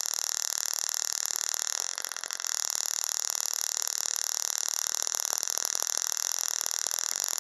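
Small tabletop spark-gap Tesla coil running, its inch-long arc from the top-load sphere to a nearby wire making a steady, harsh hiss. The hiss dips briefly about two seconds in.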